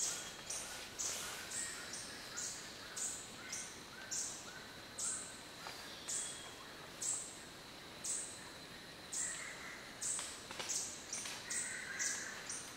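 Cloud-forest background with a short, high-pitched note repeating about twice a second, and fainter bird notes underneath.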